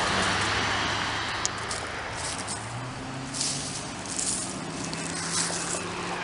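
Road traffic: cars driving past on a street, a steady hiss of tyres with a low engine hum, and a few short rustles about halfway through.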